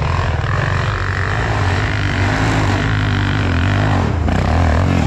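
Enduro motorcycle engine running, its pitch holding fairly steady with small rises and dips.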